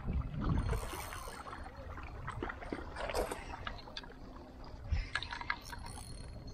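Wind buffeting the microphone and small waves lapping on shore rocks, with gusty low rumbles about half a second in and near the end. Scattered light clicks run through it.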